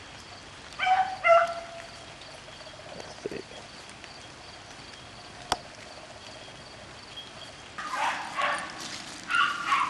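Hunting beagle baying: two loud bawls about a second in, then from about eight seconds in a fast run of overlapping barks and bawls, the sound of a hound giving voice on a rabbit hunt.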